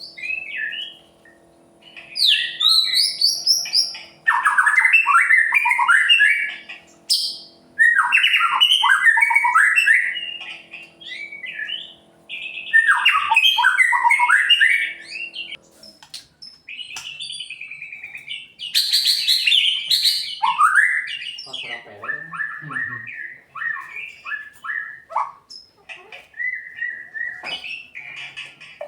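White-rumped shama (murai batu) singing loud, varied phrases of rapid down-slurred notes and whistles. The phrases last two to three seconds each, with short pauses between them, and turn into a looser run of separate notes in the second half.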